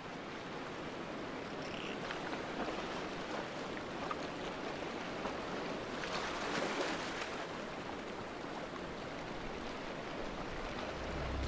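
Steady wash of sea water and surf, swelling a little around the middle.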